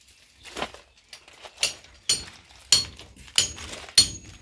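Repeated sharp metallic clinks of metal striking something hard: about six strikes, unevenly spaced, each ringing briefly.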